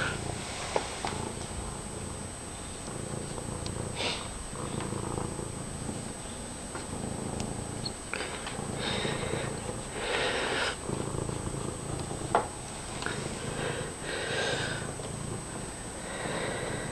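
Domestic cat purring loudly, close to the microphone, the purr coming in repeated stretches with short breaks between breaths. A few sharp clicks stand out, one of them about three-quarters of the way through.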